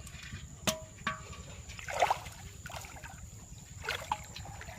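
Intermittent water splashes and sloshing in shallow floodwater, broken by a few sharp clicks and knocks, the loudest about two seconds in.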